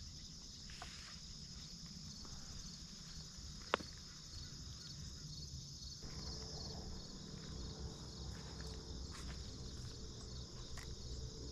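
Steady chorus of field insects, a continuous high cricket-like trilling, with a single sharp click nearly four seconds in.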